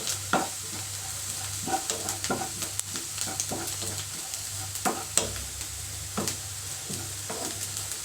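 Chopped onion and ginger frying in oil in a pan, sizzling steadily, with a spoon scraping and clicking against the pan at irregular moments as the onions are stirred so they cook through without burning.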